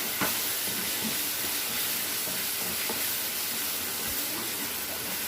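Thick tomato pickle frying in oil in a pan with a steady sizzle while being stirred. The paste has cooked down until the oil has separated from it, the sign that it is nearly ready.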